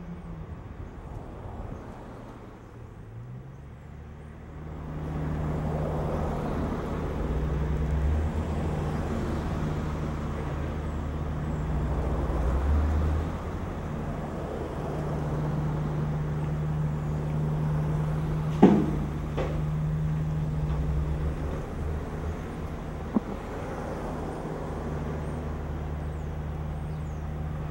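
Motor vehicle running steadily with road noise, a low engine hum throughout that grows louder about five seconds in. A sharp knock sounds about two-thirds of the way through and a fainter one a few seconds later.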